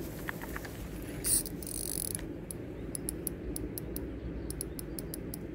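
Fishing reel clicking in an even rhythm, about four or five clicks a second, as line is worked in against a heavy carp that is still resisting; a short buzz comes just over a second in.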